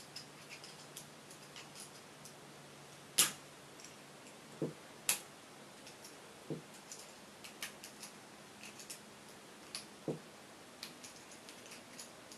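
Small metal clicks and taps of hand tools working at a VITA euro lock cylinder as it is taken apart, irregular and sparse, with a sharper click about three seconds in and another near five seconds, and a few duller knocks.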